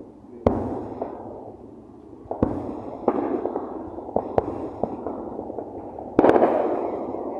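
Consumer fireworks going off: a string of about five sharp bangs a second or two apart, each followed by a fading crackle, the loudest bang near the end.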